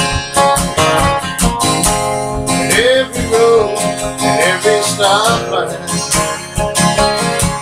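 Instrumental break of a band song: strummed acoustic guitar chords, with a lead melody line that bends in pitch from about three to five and a half seconds in.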